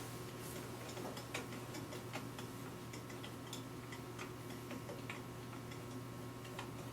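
Faint, irregular light clicks of a screwdriver working out the fore-end screw of a Pietta PPS-50 rifle's stock, about one or two a second, over a low steady hum.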